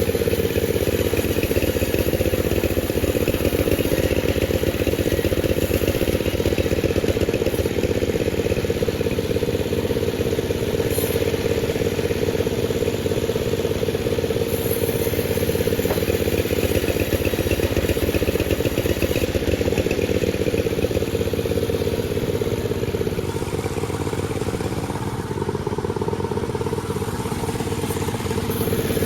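Panda36 two-stroke chainsaw running steadily at high speed while sawing a durian log. It eases off a little about 25 seconds in and picks up again near the end.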